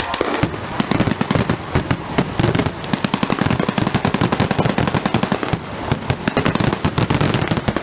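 Blank gunfire in a rapid, continuous barrage: many overlapping shots and bangs form a steady rattling crackle.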